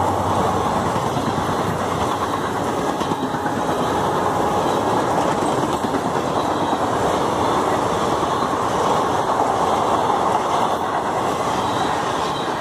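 Indian Railways passenger coaches running through at line speed close by: a loud, steady rush of wheels on the rails, easing slightly near the end as the last coaches pass.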